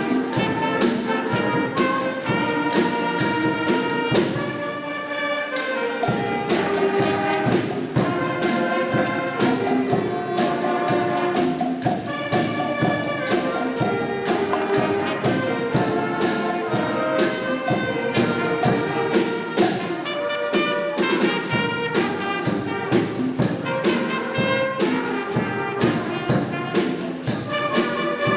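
A high school concert band playing: clarinets and other winds over a drum kit with cymbals, keeping a steady beat.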